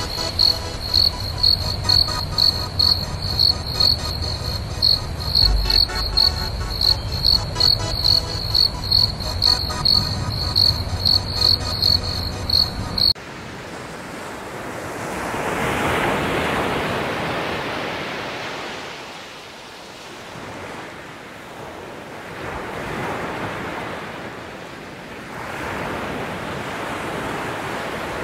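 An insect chirping in a fast, regular rhythm, about two to three high chirps a second, which cuts off suddenly about halfway through. Then waves wash over a rocky shore, swelling and easing in slow surges.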